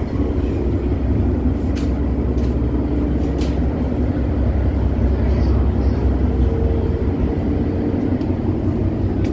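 Ferry engines running, a steady low drone with a hum heard from inside the vessel, with a few faint clicks along the way.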